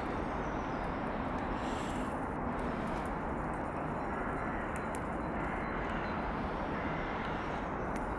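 Steady outdoor background rumble with a few faint high ticks.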